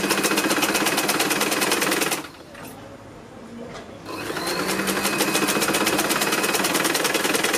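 Sewing machine stitching a jacket's seams in two fast runs. The first stops about two seconds in. After a short pause the machine speeds up again with a rising whine and runs until it stops abruptly near the end.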